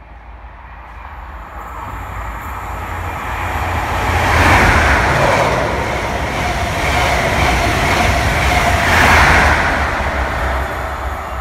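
A First Great Western High Speed Train (Class 43 diesel power cars with Mark 3 coaches) passing through the station at speed. The noise builds as it approaches, is loudest about four and a half seconds in and again near nine seconds, then fades as the train goes away.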